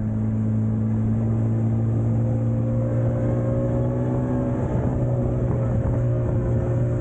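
Outboard motor of a rigid inflatable boat running steadily at cruising speed under way, a constant engine drone at an even pitch.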